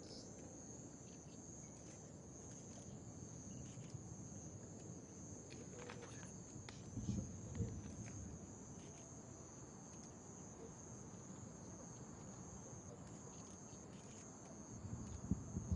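Night insects, likely crickets, chirring steadily in one high, continuous band. Two faint low thumps sound about seven and fifteen seconds in.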